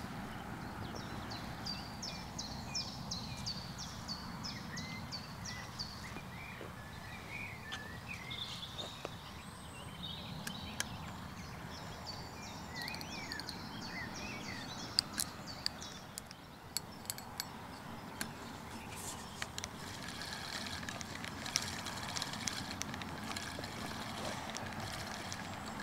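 Birds singing over a steady low outdoor background: a quick series of repeated high notes, then twittering, gliding calls. In the second half, scattered sharp clicks and taps.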